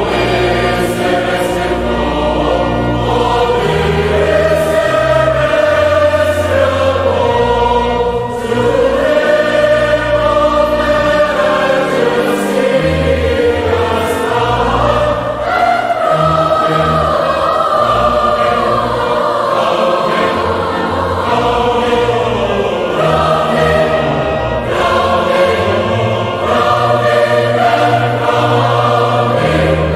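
A choir singing a slow, hymn-like piece over an instrumental bass line.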